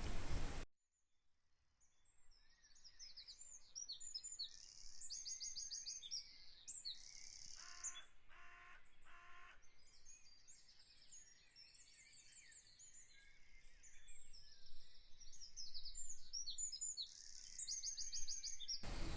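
Small birds chirping and trilling, with quick runs of repeated high notes throughout. A short, lower, pitched call sounds about halfway through.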